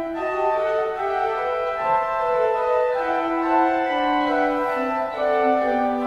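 Organ music: slow, sustained chords in long held notes, the bass line stepping slowly downward.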